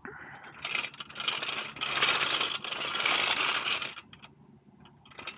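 Steel motorcycle lift clattering and rattling for about three seconds as it is pushed by its handle across asphalt, being repositioned under the motorcycle.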